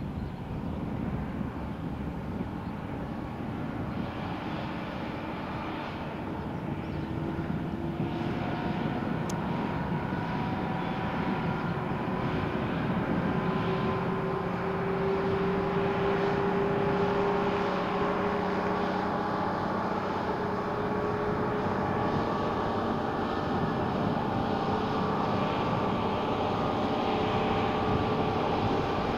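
Volvo A25D articulated dump truck driving on the sand, its diesel engine running with a steady drone. The engine grows louder over the first half as the truck comes closer, then holds steady.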